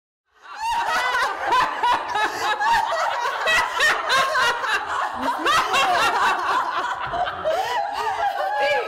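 A group of women laughing loudly together, several voices overlapping in mocking, cackling laughter, cutting in suddenly just after the start.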